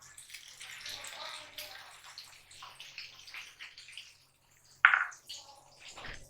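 Egg-coated mutton shami kebabs shallow-frying in hot oil over a low flame, sizzling with light crackles. A single sharp knock about five seconds in.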